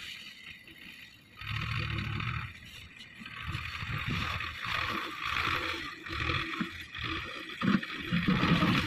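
Belarus 510 tractor with a front-end loader, its engine working at a distance as it drives up and tips a bucket of sand into a trolley. The sound swells and fades unevenly and is loudest near the end, as the load is tipped.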